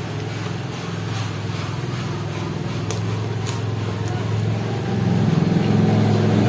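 A steady low motor drone, like an engine running close by, growing louder about five seconds in, with a few faint clicks of chewing and fingers picking at food.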